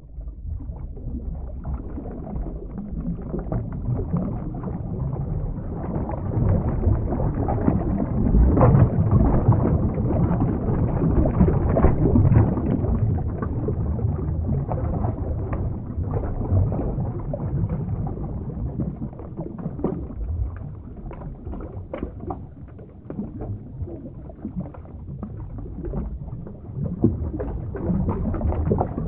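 Underwater water sound effect: a muffled, low churning and sloshing of water with scattered small clicks, swelling and easing in level.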